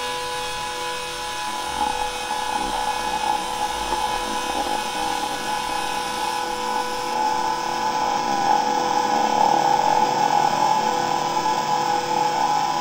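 Edited found-sound audio, changed in EQ and speed: a steady high whine over a rough, buzzing noise. It grows a little louder after the first couple of seconds.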